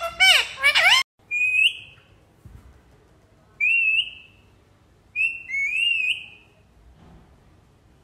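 Indian ringneck parakeet whistling. A short, loud warbling call in the first second is followed by four short whistles that rise and fall, the last two back to back.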